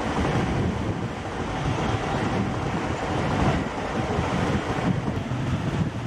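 Small waves breaking and washing up on a sandy shore, a steady rushing sound, with wind buffeting the microphone.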